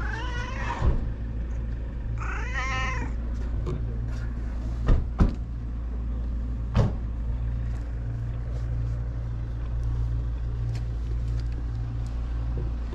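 A cat meowing twice, two short calls about two seconds apart, over a steady low rumble; a few sharp knocks follow about five and seven seconds in.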